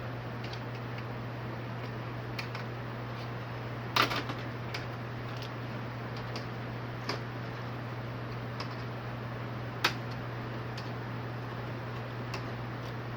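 Plastic retaining clips inside a TV's backlight assembly clicking as they are pried free with a flat tool: about a dozen sharp, irregular clicks, the loudest about four seconds in and again near ten seconds. A steady low hum runs underneath.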